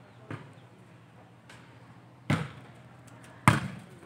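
A volleyball being struck: three sharp smacks, a light one just after the start, a strong one past two seconds and the loudest about three and a half seconds in.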